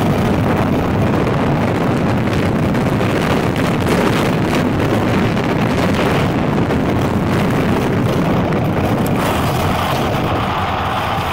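Motorcycle on the move: wind rushing over the handlebar-mounted camera's microphone, with the engine running underneath. The rush lessens about nine seconds in.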